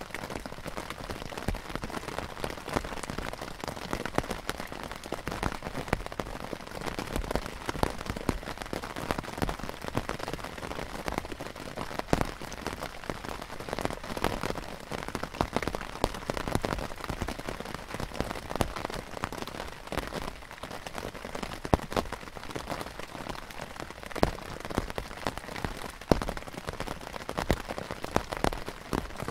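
Rain falling on the canvas of a Polish army poncho tent (lavvu): a steady patter with frequent sharper ticks of single drops hitting the canvas.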